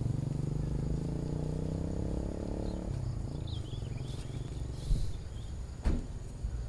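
An engine running, its pitch sinking slowly over the first three seconds, then dropping to a lower, rougher hum. There are two sharp knocks about five and six seconds in.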